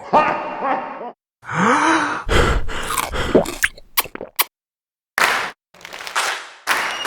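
A run of short comedy sound-effect samples played one after another with brief silences between them, mostly voice-like groans, grunts and gasps; one has a pitch that rises and falls, and a couple are sharp clicks.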